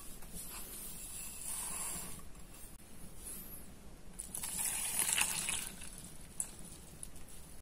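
Milk poured from a glass measuring jug into a glass bowl of flour and sugar, splashing and sloshing for about a second and a half, a little past the middle. Earlier comes a softer, dry pouring hiss of sugar going into the bowl.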